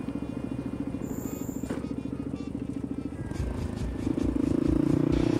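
Motorcycle engine running at low revs with an even pulse. It gets louder about four seconds in as it starts to pick up.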